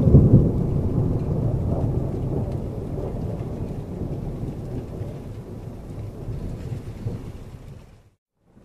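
Heavy rain falling in a thunderstorm, with a long low thunder rumble that is loudest at the start and fades away over several seconds. The sound drops out to silence near the end.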